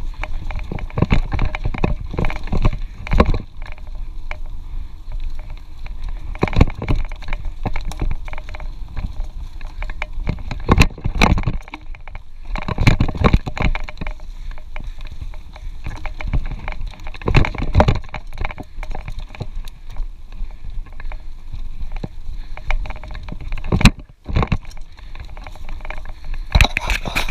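Mountain bike ridden over a bumpy dirt trail, heard from a camera riding on the bike or rider: wind rumbling on the microphone, with frequent knocks and rattles as the bike goes over bumps. The sound drops out briefly about 24 seconds in.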